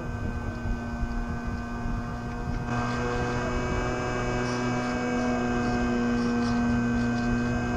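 RC model plane's motor and propeller running at steady throttle in flight, a steady whine. About three seconds in, a rushing wind noise joins it, as heard from the camera mounted on the plane.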